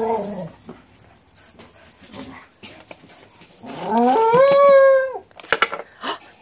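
Scottish terrier "rooing", its howl-like talking while begging for a treat: a short falling call at the start, then one long call of about a second and a half that rises and then holds. A few sharp clicks near the end come from the lid of a plastic treat jar being opened.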